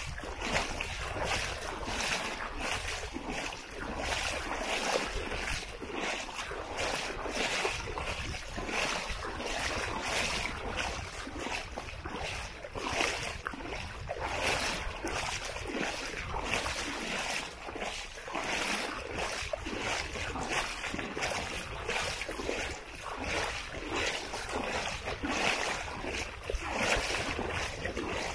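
Footsteps on the beach at a steady walking pace, about two steps a second, over wind and gentle surf.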